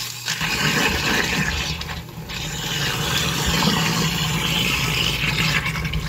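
Kitchen garbage disposal running and grinding ice cubes, with a cold-water stream pouring into it: a steady grinding rattle over the motor's hum. This is the ice trick, the ice scouring built-up gunk off the grinding chamber of a slow-spinning disposal.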